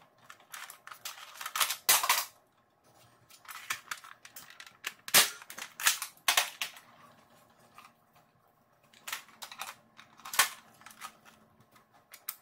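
Spring-powered Nerf Longshot blaster with a Jet Blaster Omni kit and 10 kg spring being primed and fired with short darts: a series of sharp clacks, about four loud ones, between smaller clicks and rattles of the bolt and magazine feeding.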